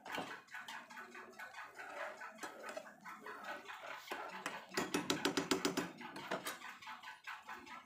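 Thick spinach gravy boiling in an open pan, its bubbles breaking with irregular soft pops and plops. A brief buzzing sound comes in about five seconds in.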